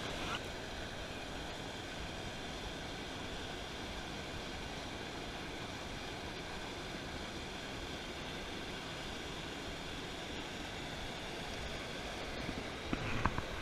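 Steady rush of river water pouring over a low stone weir, with a few short knocks near the end.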